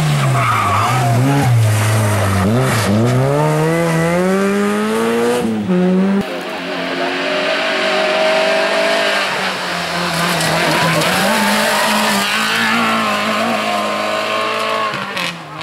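Rally car engine at full load: the revs drop off into a corner, then climb steadily as it accelerates hard. About six seconds in there is an abrupt cut to another rally car holding high revs, its note rising and falling slightly with gear changes.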